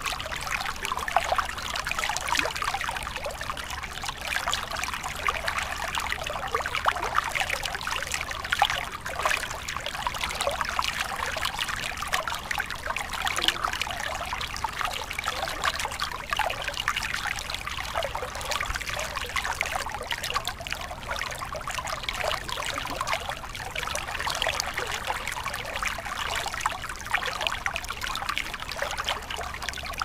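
Rocky mountain stream rushing over boulders and cobbles: a steady wash of running water with many small splashes.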